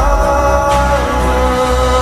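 Background music: held melodic notes that step down in pitch about halfway through, over a steady deep bass.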